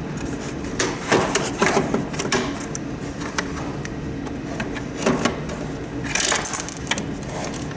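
Handling noise from taking a humidifier apart: scattered clicks and knocks with some scraping as a part is worked loose.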